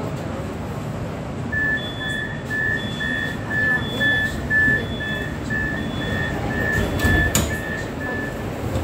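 Metro train door-closing warning: a steady series of short, high electronic beeps, about two a second, over the low rumble of the train and station. Near the end a thud is heard as the sliding doors shut.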